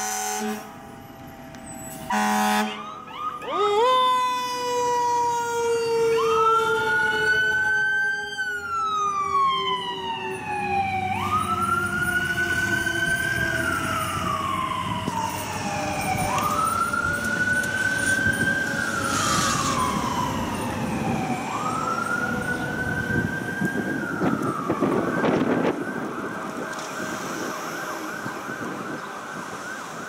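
Fire engine and ambulance sirens. A short air horn blast comes about two seconds in, then a mechanical siren winds up and slowly coasts down, while an electronic wail siren rises and falls about every five seconds.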